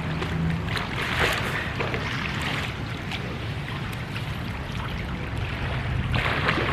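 Wind buffeting the microphone: a steady rushing noise over a low rumble.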